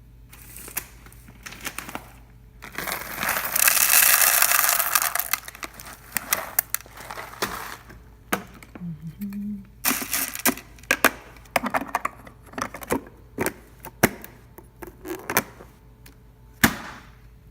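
Coffee poured into a Saeco Exprelia Evo espresso machine's hopper: a dense rattling pour lasting about three seconds, then many scattered sharp clicks and knocks of the hopper lid and machine being handled.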